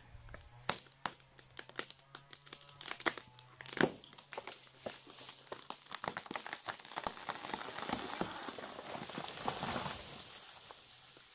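Footsteps crunching over dry leaves, twigs and wood debris, with a few sharp snaps in the first half and a denser run of crackling in the second half.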